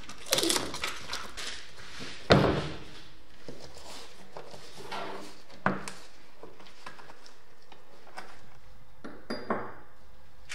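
Workbench handling sounds: a few separate knocks and thunks as new BMX tyres are unwrapped and a wheel and a steel freewheel cog are set down on the wooden bench, the loudest thunk a little over two seconds in and a light metallic ping near the end.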